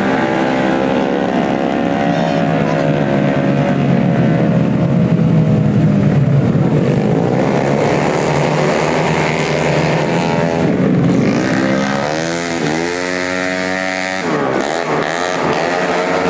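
Race-tuned 150cc automatic scooter engines running hard at high revs. In the second half the engine pitch dips sharply and climbs again several times.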